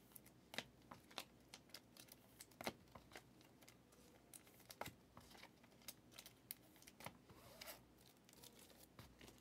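Trading cards being put into hard plastic protective cases: faint, scattered clicks and taps of plastic with light rustling of card sleeves.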